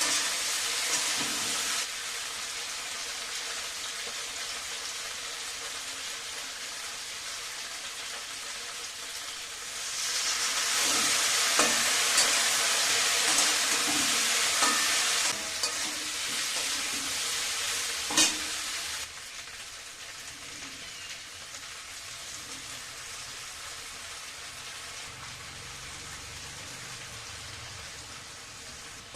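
Food sizzling in hot oil in a pan, being stirred, with a few sharp taps of the spoon against the pan. The sizzle gets louder about a third of the way in, then dies down in two steps.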